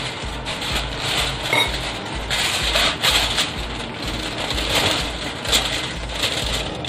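Aluminium foil crinkling and crackling in irregular bursts as it is folded and pressed around a whole milkfish, over a low pulsing hum.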